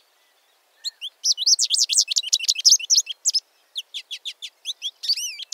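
American goldfinch song: a long, rambling run of quick, high twittering and chirping notes, rising and falling in pitch, starting after a short pause.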